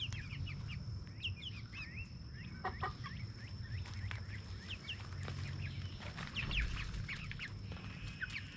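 Young chickens, pullets not yet laying, making short high peeping and clucking calls scattered throughout.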